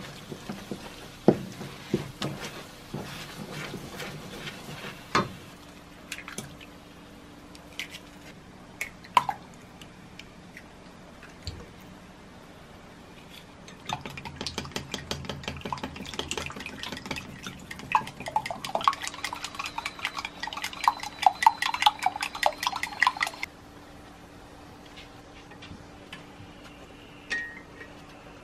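A wooden spatula scrapes and stirs diced vegetables and curry powder in a stainless steel pan. After a quieter stretch, from about halfway in, eggs are beaten in a glass measuring cup with rapid clinking against the glass for about ten seconds.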